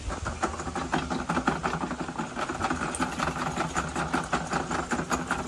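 Electric spring-cable drain-cleaning machine running, its motor humming while the spinning cable rattles in a rapid stream of ticks as it works through a grease-clogged drain pipe.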